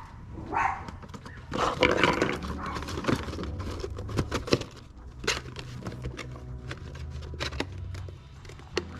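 Plastic clicks and knocks as the pressure valve is worked off the top of a ProVent 200 oil catch can lid, with a few louder, noisier bursts about half a second and two seconds in.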